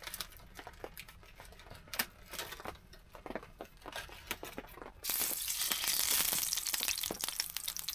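Plastic bacon packet crinkling as rashers are peeled out of it, then about five seconds in a sudden steady sizzle as bacon is laid into a hot frying pan on a wood stove.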